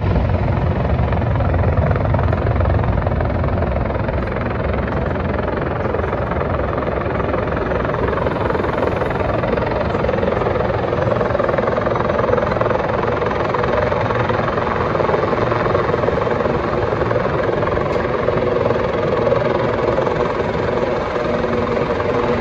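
Sikorsky S-76C twin-turboshaft helicopter on its landing approach, its main rotor beating with a fast low pulse under a steady engine and gearbox drone. The sound runs on loud and unbroken throughout.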